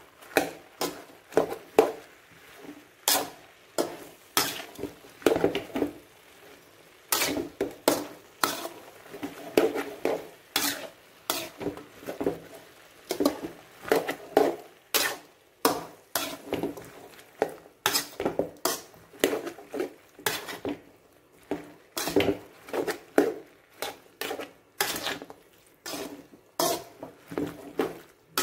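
A spoon scraping and knocking against a cooking pan in irregular strokes, about one or two a second, as vegetables are stirred and sautéed in oil for capsicum curry.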